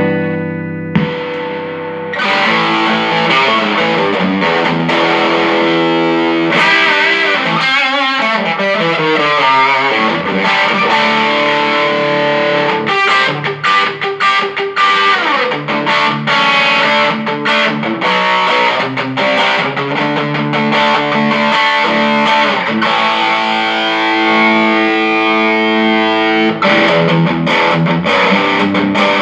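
Electric guitar played through a Mesa/Boogie Studio .22+ tube combo amp, in a distorted tone: a run of chords and single notes that carries on without cutting out, a test of an amp repaired for sound that randomly dropped out. A chord rings and stops about a second in before the playing resumes.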